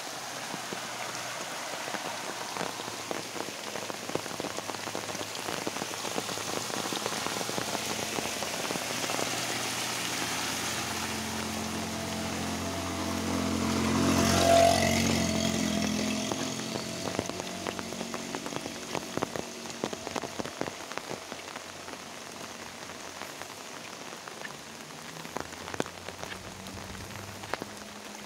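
Steady rain falling, with scattered drops ticking. About halfway through, a motorbike passes close by, its engine growing louder and then fading over a few seconds.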